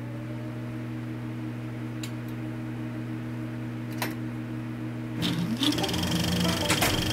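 A steady machine hum, low-pitched with a few overtones. About five seconds in, a short rising whine sounds and a busier, louder running noise with a high steady tone joins it.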